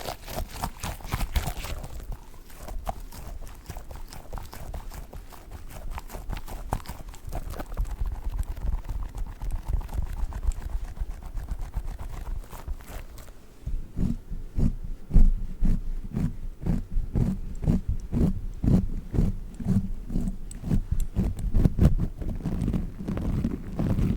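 A squishy dog toy squeezed and handled close to the microphone, giving rapid soft squishes and little clicks. About 14 seconds in, the squeezes turn deeper and heavier, coming about twice a second.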